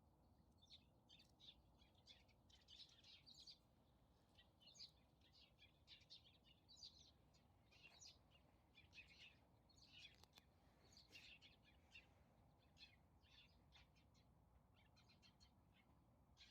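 Faint chirping of small birds: many short, quick calls scattered throughout, over a low background hiss.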